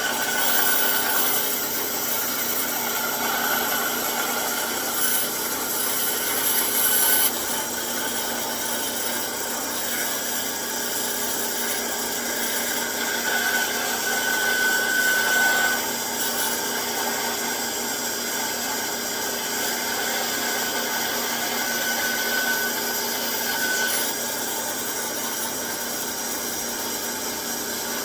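Band saw running, its blade cutting slowly through 3/8-inch-thick walnut. A steady whirring hiss, with short high tones coming and going a few times.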